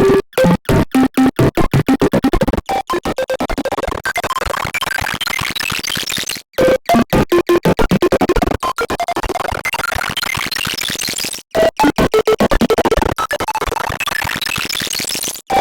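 A short spoken 'lean' meme sound effect looped and sped up to an extreme rate, so the word blurs into a dense, choppy stutter of rapid clicks. The loop restarts with brief dropouts about every four to five seconds.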